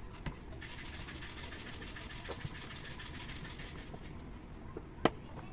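Pressure washer's electric motor and pump running briefly in a test, starting about half a second in and cutting off about three seconds later. A single sharp click follows near the end.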